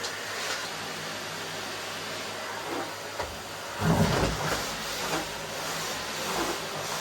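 Vacuum cleaner running steadily, with a few light knocks and one louder thud about four seconds in.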